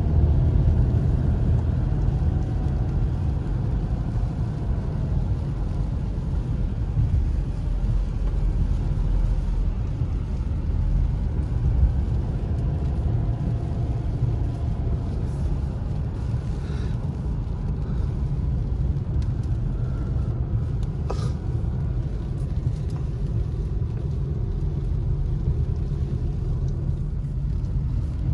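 A car driving on a rain-wet road, heard from inside the cabin: a steady low rumble of engine and tyres.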